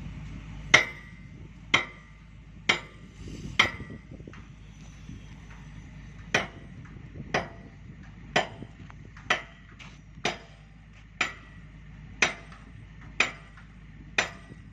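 A hammer striking steel on an excavator bucket, about one blow a second, each with a short metallic ring. There are four blows, a pause of about two seconds, then nine more.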